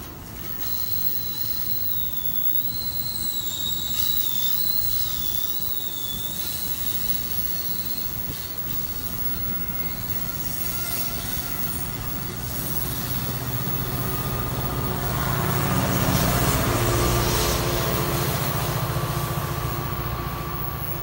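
New Jersey Transit commuter train passing on curved track: a wavering, high-pitched wheel squeal for the first several seconds over the running of the cars. The diesel locomotive's engine then grows louder, loudest about two-thirds of the way through, and eases off slightly near the end.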